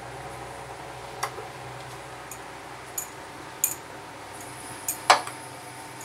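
Scattered light clicks and taps of a spoon and fingers against a plate while soft pumpkin leaves are folded around a filling, about six in all, the loudest a sharp tap near the end.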